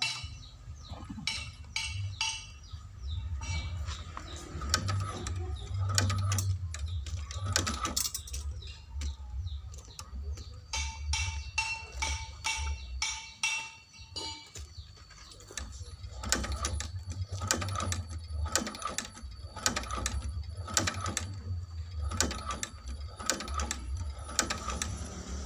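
Motorised shoe-sole stitching machine run slowly: a steady low motor hum with repeated clicking stitch strokes, about two a second, and a brief lull about halfway.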